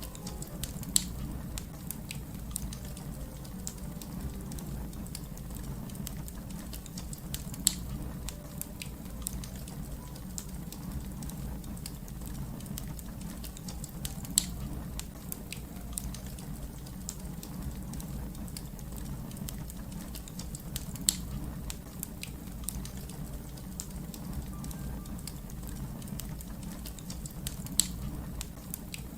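Fire crackling: a steady low rumble under a constant patter of small crackles, with five sharp, louder pops spaced about six to seven seconds apart.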